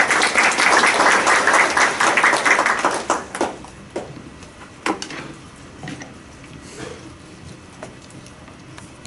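Audience applauding. The clapping is loud and dense for about three seconds, then dies away into a few scattered claps.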